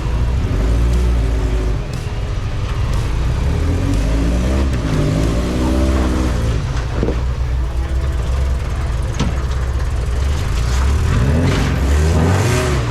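Off-road truck engine running at low revs while crawling over rocks, rising and falling in pitch twice. A few sharp knocks come in between.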